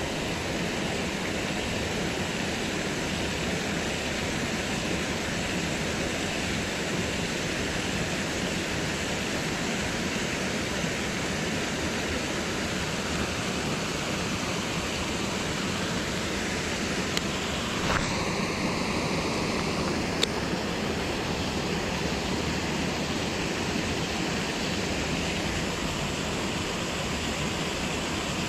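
Steady rush of flowing river water. About two-thirds of the way in come two sharp clicks, with a short high tone between them.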